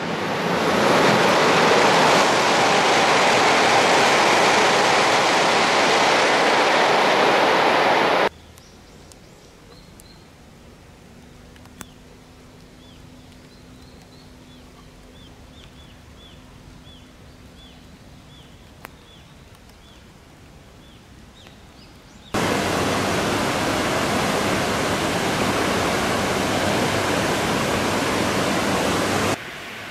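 An E2-series Shinkansen rushing through the station at speed. Its sound swells in and then cuts off abruptly about 8 seconds in. Next comes a quiet stretch with faint, scattered bird chirps, and from about 22 seconds in, the steady rush of the Tone River flowing fast.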